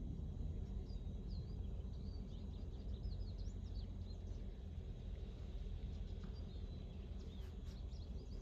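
Steady low wind rumble on the microphone, with small birds chirping in quick, high, gliding notes through most of it.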